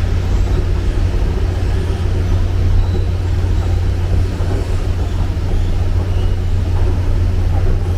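Steady low rumble and hum of the Seoul Subway Line 9, with an even noise above it and no distinct events.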